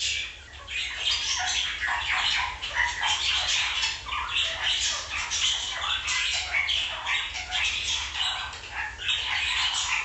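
A recording of superb parrots calling: many short calls overlapping with no break, played on air.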